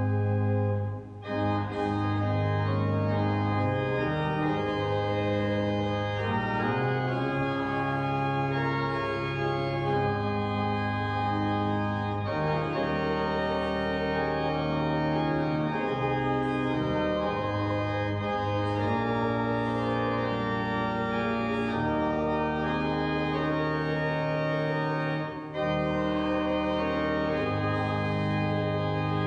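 Church organ playing a hymn: sustained chords that change every second or two, with brief breaks about a second in and a few seconds before the end.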